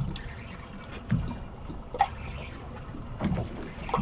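Sea water lapping and slapping against the hull of a small fishing boat, with three louder slaps over a steady low rumble of sea and wind.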